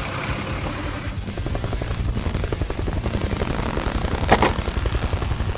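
Rapid, even mechanical pulsing, as from a running motor, with a single sharp click about four seconds in.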